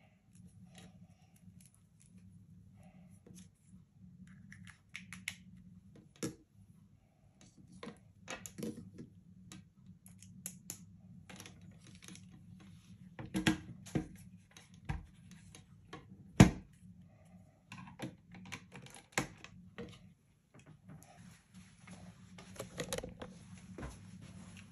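Irregular clicks, taps and knocks of objects being handled, over a steady low hum; the sharpest knock comes about 16 seconds in, and a faint hiss joins near the end.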